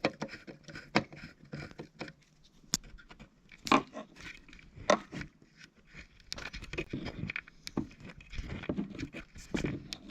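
Hands working at the plastic module box of a Wheelock TB-593 bell, trying to open it: irregular clicks, knocks and scraping, with a few sharper knocks.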